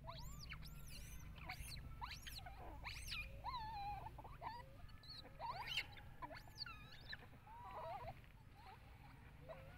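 Long-tailed macaques, young ones among them, giving a string of high, thin squeals that swoop up and down in pitch, thick over the first seven seconds and sparse near the end, over a steady low rumble.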